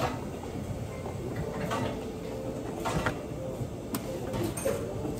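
A few light knocks and clatters of plastic and paper cups being handled and set down on a café counter, over a low steady background hum.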